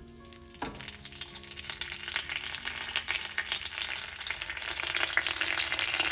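Butter sizzling and crackling in a hot frying pan as chopped onion fries in it, the crackle building steadily louder.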